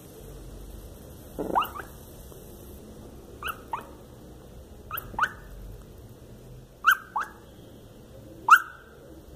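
Lhasa Apso puppy yipping and whimpering in its sleep during a bad dream: short calls that fall in pitch, mostly in pairs, every second and a half or so, the last one the loudest.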